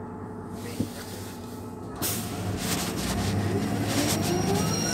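On-board sound of a Van Hool NewA309 city bus driving, its MAN D0836 six-cylinder diesel running with a steady low hum and a single click just under a second in. About two seconds in it gets suddenly louder, with whines rising in pitch.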